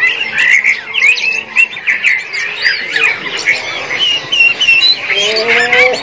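Caged songbirds singing a dense, continuous run of quick, varied whistles and chirps, with a lower rising note near the end.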